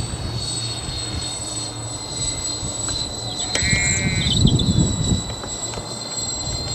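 Motors of a four-engine radio-controlled model B-24 Liberator droning overhead, with a steady high whine. About halfway through, a gust of low rumble hits the microphone and a short animal bleat is heard.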